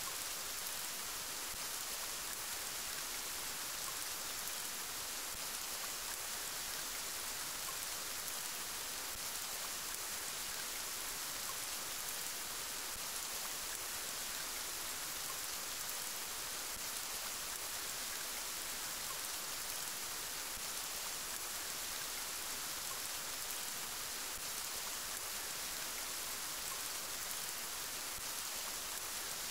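Steady rain falling, an even hiss with no thunder and no single drops standing out.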